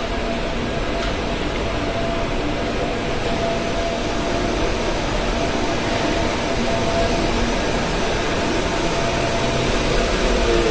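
Schindler 5500 traction lift car travelling through its shaft, heard from the car roof: a steady rushing rumble of the moving car and its guide rails, with a faint constant hum.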